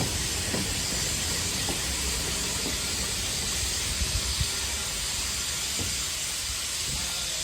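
Steam locomotive hissing steadily, with a low rumble and a few faint knocks.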